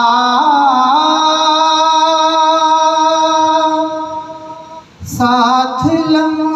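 A man singing an Urdu naat holds one long, drawn-out note at the end of a line, which fades away about four and a half seconds in. After a brief pause he starts the next sung phrase.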